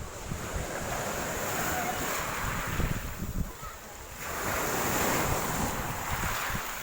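Sea waves washing onto the shore, with wind buffeting the microphone. The surf dies down briefly about three seconds in and swells again a second later.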